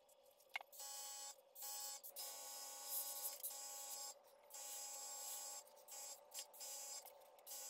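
An airbrush spraying paint in short, irregular bursts: a hiss of air that starts and stops every half second to a second, each burst carrying a steady hum from the airbrush compressor.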